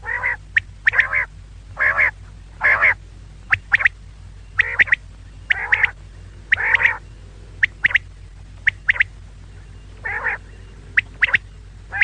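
Female common quail calling: a series of short calls, each about half a second long, coming roughly one every second or so, with brief sharp high notes between them.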